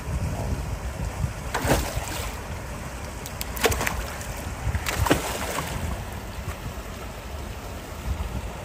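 Harbor seals splashing in their pool, three sharp splashes a second or two apart, over wind rumbling on the microphone.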